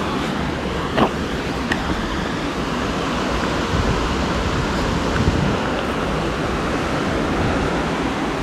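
Steady rush of a waterfall and its river running full with rainy-season water, with a few short knocks of shoes and hands on the rock, the sharpest about a second in.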